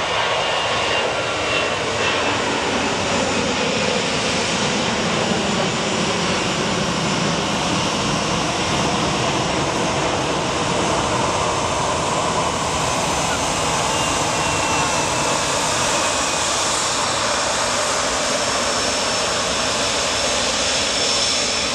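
An easyJet Airbus airliner's twin jet engines running at taxi power: a steady rush with a faint high whine that drifts slightly in pitch.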